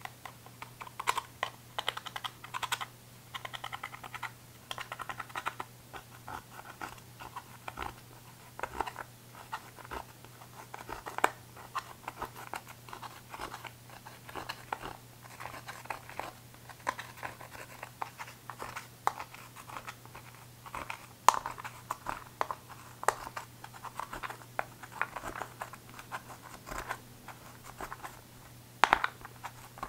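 A small metal tool scraping and picking at pressed eyeshadow pans in a plastic palette, crumbling the powder: irregular clicks, taps and short scratches.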